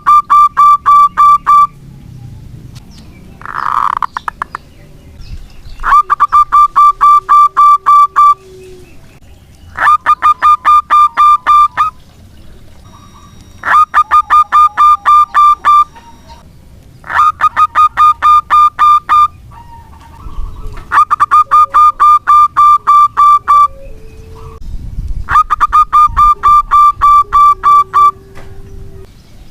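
Zebra dove (perkutut) singing its cooing song over and over, in loud two-second phrases of quick, even, pulsed notes that return every three to four seconds. A lively bird in full song of this kind is played as a lure to set other perkutut singing.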